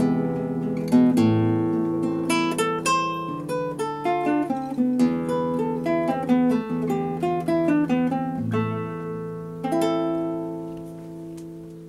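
Nylon-string classical guitar played solo, a fingerpicked melody over ringing bass notes in the closing bars of a slow romance. A final chord struck about ten seconds in rings out and fades away.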